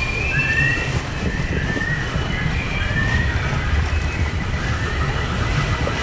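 White-water rapids rushing and splashing around a round river raft, with a heavy low rumble and a string of faint short squeaks that rise in pitch, about one a second.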